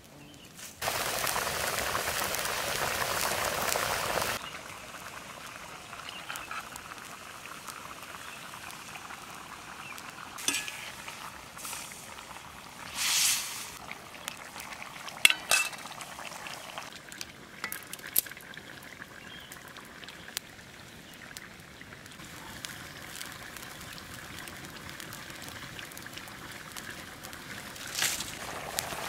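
Mutton curry cooking in a karai: a loud rush of sizzling for about three seconds, then steady bubbling and hissing, with a few metal clinks against the pan.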